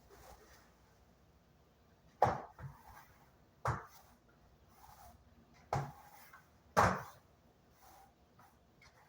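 Four sharp knocks at irregular intervals, from household items being handled and set down during cleaning.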